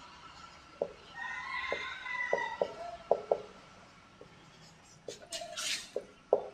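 Marker pen writing on a whiteboard: short squeaks and sharp ticks as the letters are drawn, with a brief high squeal between about one and two seconds in and a quick swipe of the tip near the end.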